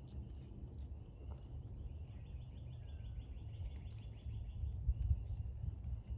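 A small bird singing a fast trill of evenly repeated high notes, about two seconds long near the middle, with fainter high chirps before and after. Under it runs a steady low rumble.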